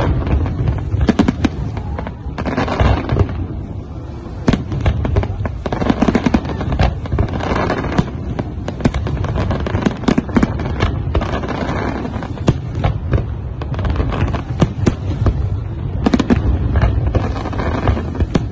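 Fireworks display: aerial shells bursting in quick, overlapping bangs, several a second, with crackling, over a continuous low rumble.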